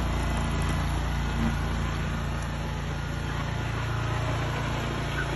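An engine running steadily at a low, even pitch, which shifts slightly about three and a half seconds in.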